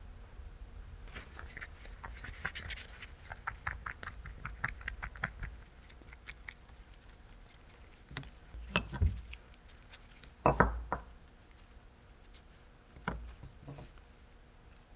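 Workshop handling sounds: a quick run of light clicks and taps, then a few heavier knocks, the loudest about ten and a half seconds in.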